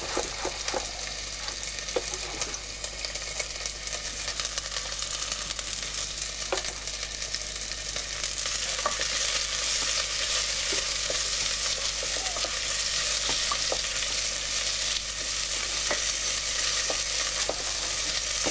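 Sliced onion sizzling in hot oil in a pot as it is sweated until translucent, with scattered light clicks. The sizzle grows louder about eight seconds in.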